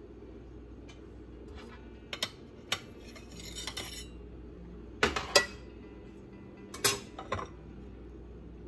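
Metal cake server clinking and scraping against ceramic plates as a slice of dessert is lifted onto a plate: a few light taps, a stretch of scraping, then several sharp clinks past the middle.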